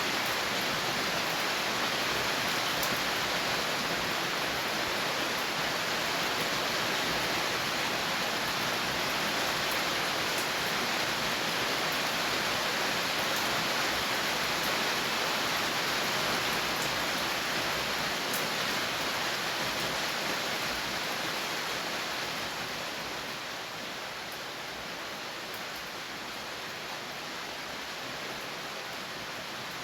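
Steady rain falling, a dense even hiss with scattered drop ticks, easing off a little about three-quarters of the way through.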